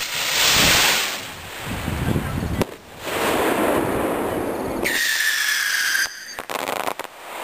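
Black powder firework rocket launching: a sudden loud rushing hiss as the motor ignites and lifts off, then a lower rumbling hiss as it climbs. About five seconds in, a brief steady high tone sounds, followed by a few clicks.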